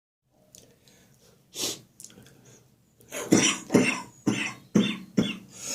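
A person with a cold coughing a chesty cough. Faint breathing at first and one short louder burst about a second and a half in, then from about three seconds a fit of coughs, about two a second.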